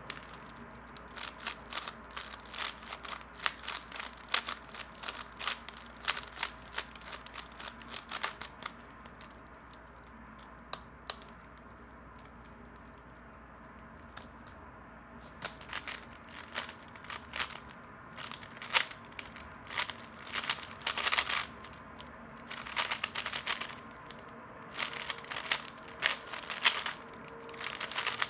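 Rapid plastic clicking and clacking of a 3x3 speedcube being turned fast, in two spells with a quieter gap of several seconds between them.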